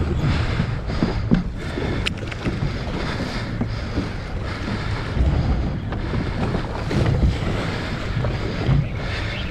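Wind buffeting the microphone over water sloshing around a small boat on open sea, with a heavy, uneven low rumble.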